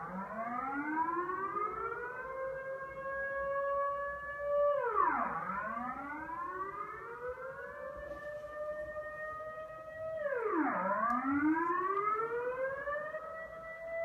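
Civil defence warning siren wailing: its pitch falls steeply, then climbs back slowly and holds, over and over about every five and a half seconds.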